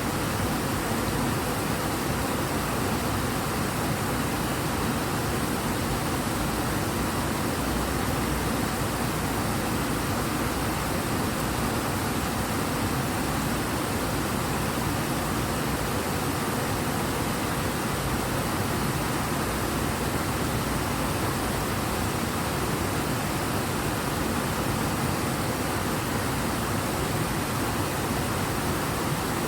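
River water rushing strongly and steadily, a full, even roar of fast-flowing current without breaks.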